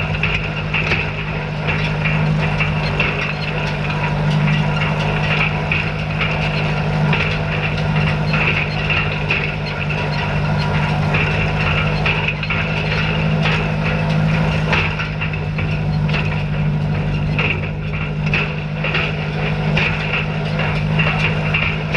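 Tractor engine running steadily while pulling a hay rake, with irregular clicks and rattles from the working rake over the engine's hum.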